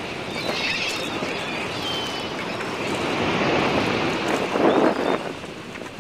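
Steady wind rush on the microphone over open water, with a few short high squeaks in the first couple of seconds.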